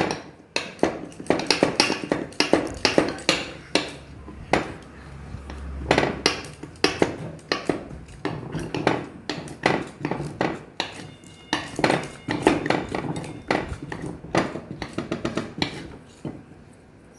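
Metal hand whisk clattering and scraping against a mixing bowl in quick, irregular strokes, several a second, with brief pauses, as flour is beaten into cake batter.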